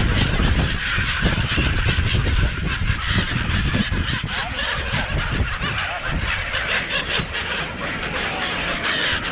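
A large flock of brown-headed gulls, many calling at once in a continuous din, over a steady low rumble.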